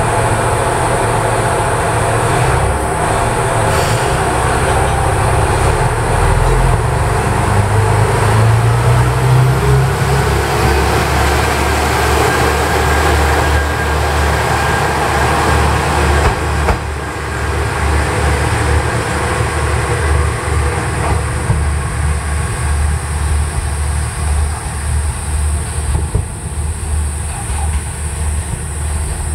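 Kanto Railway KiHa 2300 diesel railcar pulling away from the platform: its diesel engines rev up under load, a faint rising whine joins in, and the wheels run on the rails as it passes and draws away.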